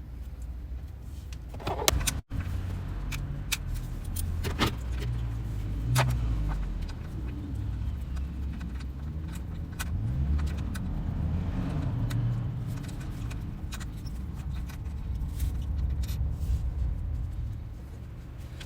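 Honda CBR1000RR (SC57) inline-four engine running, its revs rising and falling a little, with sharp clicks scattered through. The engine has an abnormal noise that the owner is trying to trace.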